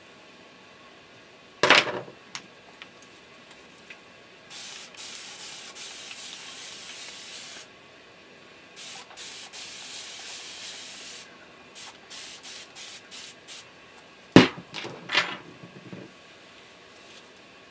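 Spray bottle misting water onto curly hair: two long hissing sprays of about three and two and a half seconds, then a quick run of short spritzes. Loud knocks sound near the start and again a few seconds before the end.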